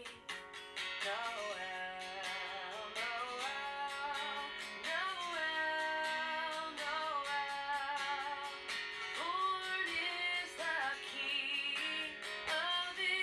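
Background music: a song with a melody sung over plucked and strummed guitar.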